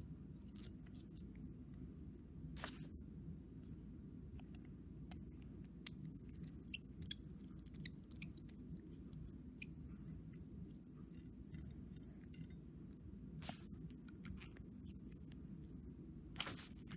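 Small sharp clicks and ticks of metal rollerball pen parts being handled and fitted together by hand: refill, spring, tip and fittings tapping and threading into place. The clicks come scattered, thickest in the middle, with the two sharpest close together just before and after eleven seconds in, over a low steady background hum.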